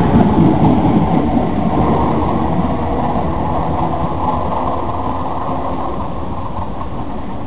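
Electric commuter train running past close by and away down the line, a steady wheel-and-motor rumble that fades gradually.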